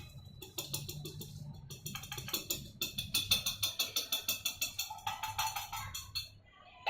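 A fork stirring and beating salted egg powder in a pan, tapping the metal in a quick, even run of clicks, several a second, that fades out shortly before the end.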